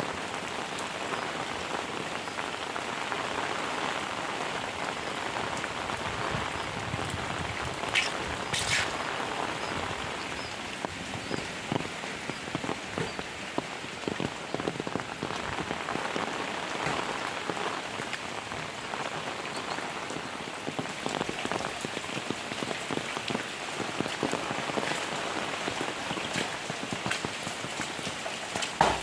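Heavy rain falling steadily, a dense patter of drops hitting surfaces. About eight seconds in come two short, sharp sounds.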